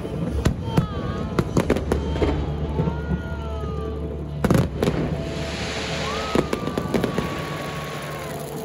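Fireworks display: shells bursting in repeated sharp bangs, with a dense cluster of loud bangs about four and a half seconds in followed by crackling.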